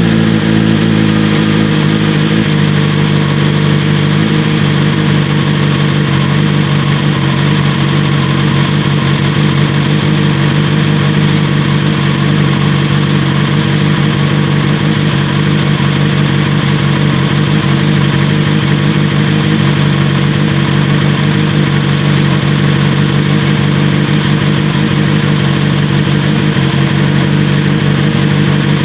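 BMW S1000R inline-four idling through an Austin Racing V3 Mini slip-on exhaust while still warming up after a cold start. The idle eases down slightly about two seconds in, then holds steady.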